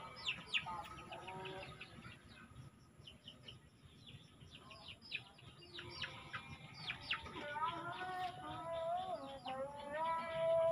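Small birds chirping, a busy run of short, sharp falling chirps. In the last few seconds, background music with a singing voice comes in.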